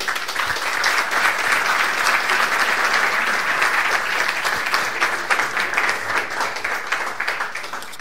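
Audience applauding: many people clapping steadily at the end of a talk.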